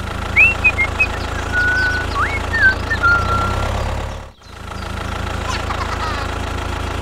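Tractor engine running steadily at idle, with a brief drop-out about four seconds in. Faint high chirps sound over it in the first half.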